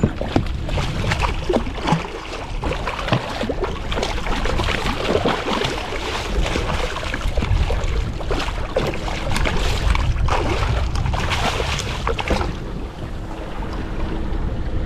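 Water splashing and churning beside a boat as a hooked mahi-mahi thrashes at the surface while being landed, with wind rumbling on the microphone.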